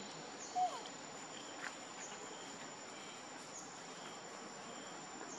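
Steady high-pitched insect drone, with a faint chirp dipping in pitch about every second and a half. A brief short call sounds about half a second in.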